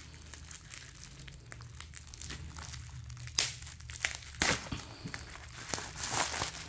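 Bubble-wrap packaging crinkling and crackling as it is cut and worked open with a folding knife, with scattered sharp clicks. The crinkling grows louder near the end as the wrap is pulled apart.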